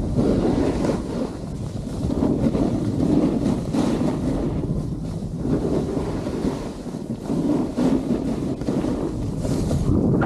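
Wind rushing over the camera microphone and a snowboard sliding and scraping over packed piste snow during a run downhill, a continuous rough noise that swells and eases with the turns.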